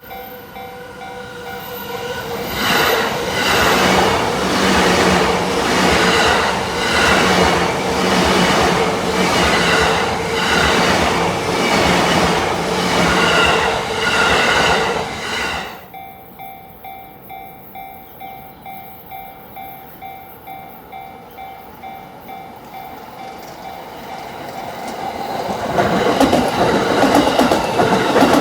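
A JR Yamanote Line electric train runs through a level crossing with a steady rhythm of wheel clacks over the rail joints, then cuts off sharply when the last car clears, about halfway through. The crossing's warning bells keep ringing in an even repeating clang, and another train comes in loud near the end.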